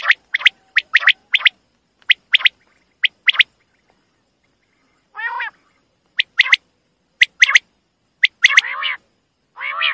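Common quail calling: quick, sharp notes in groups of two and three, repeated with short gaps. A longer, lower call comes about five seconds in, and several more follow near the end.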